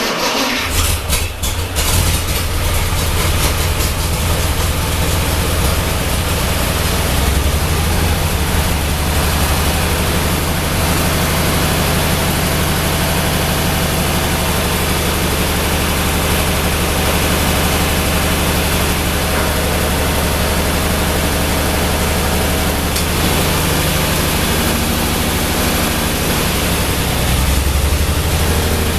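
Ford 8N tractor's flathead engine starting: it catches at once with a couple of seconds of uneven firing, then settles into a steady idle.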